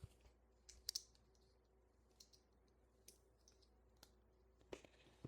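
Faint, scattered clicks of plastic LEGO bricks being handled and pressed into place, a handful over several seconds, the sharpest about a second in.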